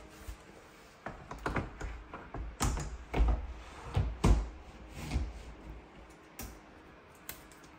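A run of irregular knocks and thumps, starting about a second in, the two heaviest near the middle and a few lighter ones after.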